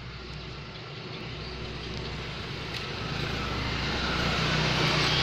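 Distant engine noise, a low rumble with a hiss, growing steadily louder.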